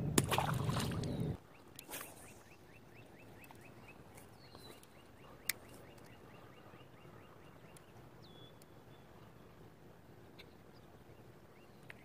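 Quiet open-air ambience. A rustling noise cuts off abruptly about a second and a half in, leaving near quiet with a few faint, short high chirps, a quick run of faint ticks and a single click.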